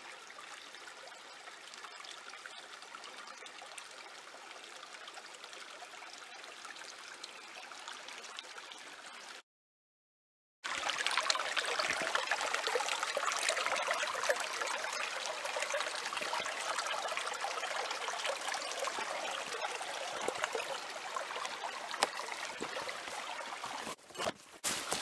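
Small creek running: a steady trickle and rush of water, quieter at first, cut off completely for about a second near the middle, then louder. Near the end, brush crackling and footsteps through ferns.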